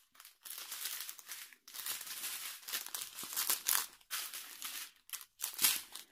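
Small plastic bags of diamond-painting drills crinkling as they are handled and sorted, in several bursts with short pauses between them.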